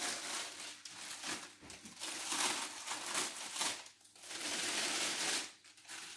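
Clear plastic roasting sleeve crinkling and rustling as it is pulled off a baked carp and bunched up in the hands, in several rustles that die away near the end.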